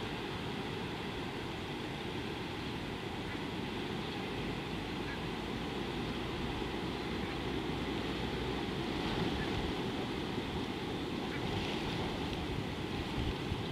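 Steady wind noise rumbling on an outdoor microphone, with a constant hiss over it and no distinct events.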